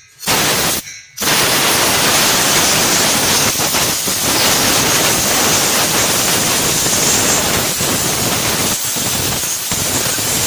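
Compressed air from a compressor blow gun hissing as it blows dirt and grit off the engine's timing-belt area. It comes as two short blasts, then one long continuous blast from about a second in.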